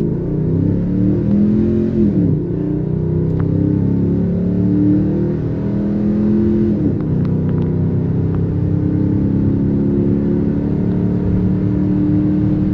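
2008 Toyota Tundra V8 with a Gibson cat-back dual exhaust, heard from inside the cab while the truck accelerates. The engine note climbs, drops back sharply twice at gear changes (about two and seven seconds in), then holds steady. It is a low, mild rumble in the cab.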